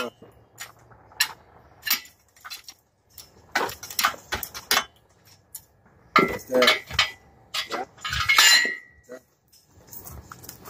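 Irregular metal clinks and clanks from a hydraulic engine hoist lifting an engine, as its handle is pumped and the chain and metal parts knock together, busiest a little past halfway.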